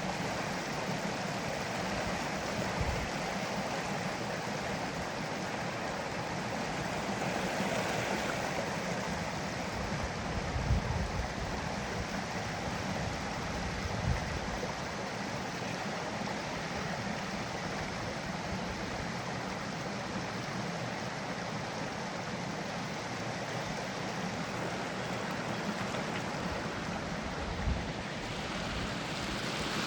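Creek water running in a steady rushing wash, with a few brief low thumps.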